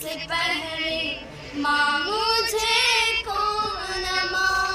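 A high singing voice carrying a slow melody, with long held, wavering notes and a short break about a second and a half in.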